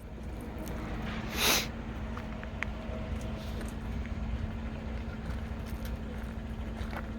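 A vehicle engine idling with a steady low hum, and one short loud burst of noise about a second and a half in.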